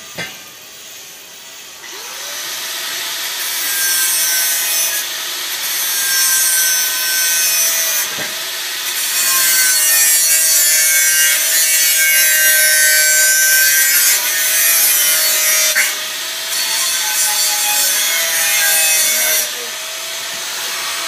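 Hand-held angle grinder with a cutting disc cutting stainless steel square tube: a steady motor whine under a harsh metal-cutting hiss. It starts about two seconds in, eases off briefly a few times as the cut goes on, and stops near the end.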